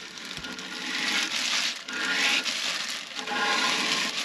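Scraping oily grime and rust out of the inside of a rectifier's oil tank, in several long rasping strokes of about a second each.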